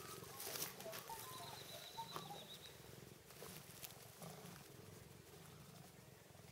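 Tonkinese cat purring steadily and softly, with a few light clicks as it bites at a stick and some faint short chirps in the first two or three seconds.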